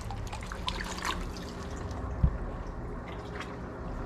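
Water trickling and dripping among the live bullheads in their water, with scattered small drips and one low thump about two seconds in.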